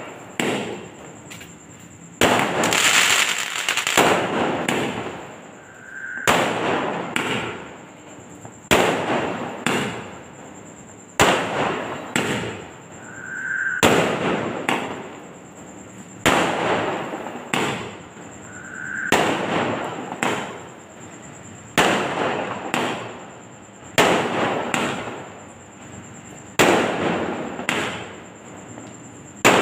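Aerial firework shells bursting in the sky one after another, roughly every two to three seconds. Each sharp bang trails off over a second or two.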